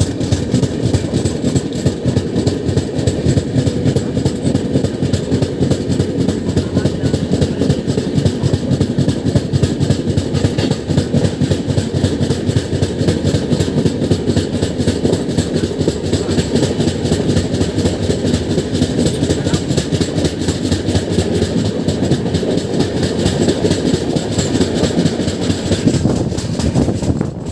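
Passenger train running at speed: a loud, steady rumble with a fast rattle of wheels and carriages.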